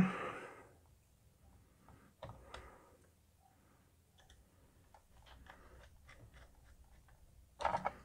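Small screwdriver turning screws into a metal 2.5-inch drive caddy holding an SSD: faint scattered clicks and scrapes of metal on metal, with a short louder knock near the end.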